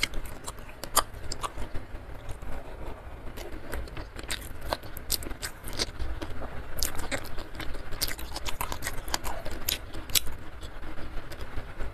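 Close-miked chewing and crunching of a mouthful of food, with many short, sharp wet mouth clicks at an irregular pace.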